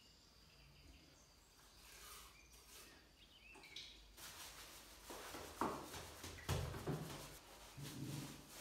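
Faint knocks and clunks of painting work on a stepladder: two sharp knocks a little past halfway, then a few low, muffled thuds near the end.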